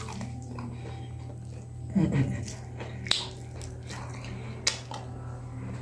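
A man eating chicken on the bone with his fingers: biting and chewing, with a couple of sharp clicks about three and four and a half seconds in. A short murmur of his voice about two seconds in, over a steady low hum.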